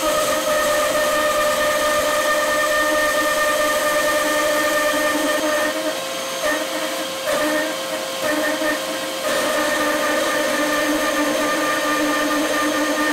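Axminster Hobby bandsaw running, its blade ripping lengthwise through a green, unsawn log clamped on a sled; a steady machine hum that wavers and dips for a few seconds in the middle of the cut.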